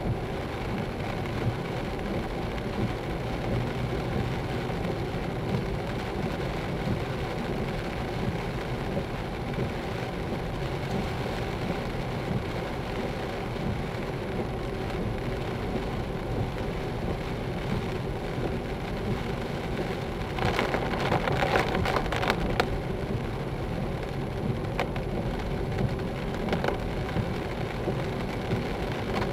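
Rain falling on a moving car's windscreen and roof, with tyres hissing on the wet road, heard inside the cabin. It is steady, with a louder rush for about two seconds roughly two-thirds of the way through.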